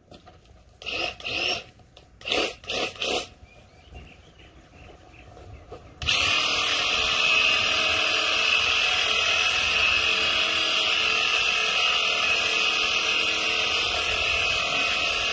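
Battery-powered Graco Ultimate handheld airless sprayer switching on suddenly about six seconds in and running steadily, spraying water-based liquid masking onto window glass: a loud, even motor buzz with a strong hiss of spray. A few brief noises come before it.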